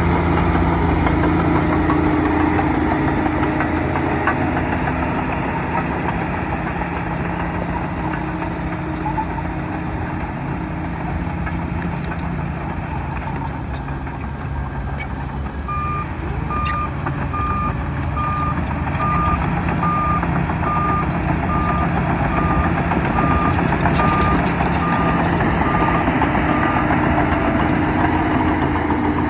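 Bulldozer's diesel engine running steadily, easing off a little in the middle and building again near the end. About halfway through a reversing alarm starts beeping, roughly one and a half beeps a second, and stops a couple of seconds before the end as the machine backs up.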